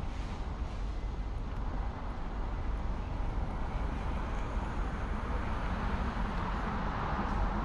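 Street traffic: a steady low rumble of road noise, with a passing vehicle's tyre and engine noise growing louder in the second half.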